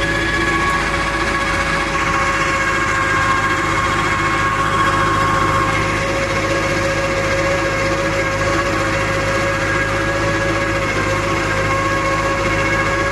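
YUMZ-8040 tractor's diesel engine running steadily at one even pitch under load while pulling a plough.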